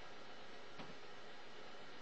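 Steady faint hiss of room tone and recording noise, with one soft knock about a second in.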